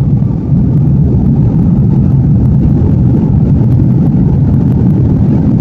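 Airliner cabin noise during takeoff: a loud, steady rumble of the jet engines and rushing air heard from inside the cabin, stepping up a little about half a second in.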